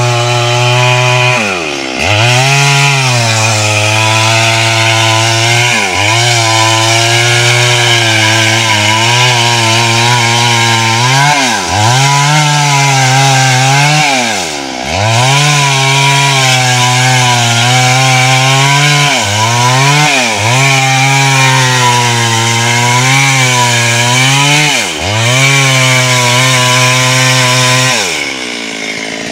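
Two-stroke chainsaw running at high revs while cutting through a thick tree trunk. Every few seconds its pitch sags as the chain bogs down in the wood, then climbs back up.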